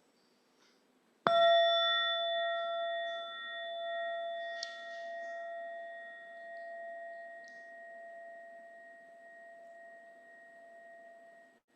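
A bell struck once, ringing on with several clear, steady pitches that pulse slowly as they fade over about ten seconds, then cut off suddenly near the end.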